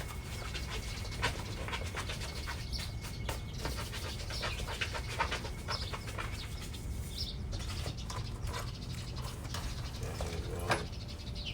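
A dog panting, with scattered clicks and rustles of packaging being handled.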